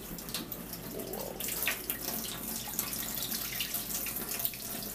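Kitchen tap running into a sink while dishes are washed by hand, with short clinks and splashes; the water gets louder about a second and a half in.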